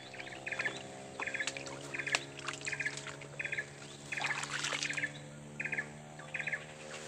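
A short, rapid chirping trill repeated over and over, about three times every two seconds, over a steady low hum.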